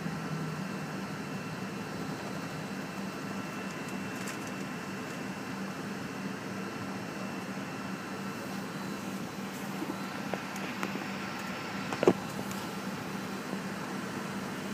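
Steady cabin noise of an MD-83 airliner taxiing, heard from a forward seat: a low hum with a faint steady whine. A single sharp knock about twelve seconds in.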